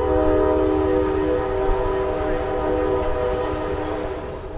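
Train horn sounding one long, steady multi-note blast over a low rumble, cutting off near the end.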